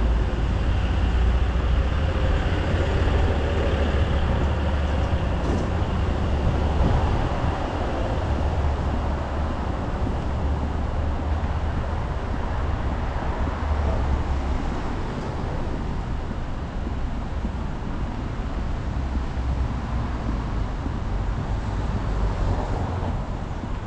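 City street traffic: a steady deep rumble of passing vehicles, a little louder in the first eight seconds or so.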